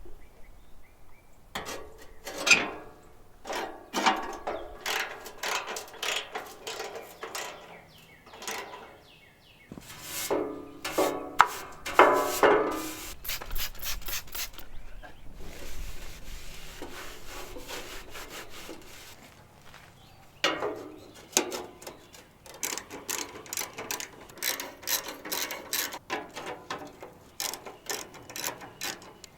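Hand-tool work on a garden tractor's shifter: irregular metal clinks, knocks and scrapes, with bursts of ratchet-like clicking.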